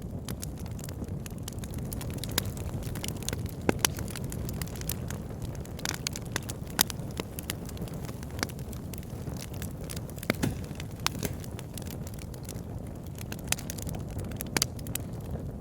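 Fire burning in a fireplace: a steady low rush with frequent irregular crackles and sharp pops.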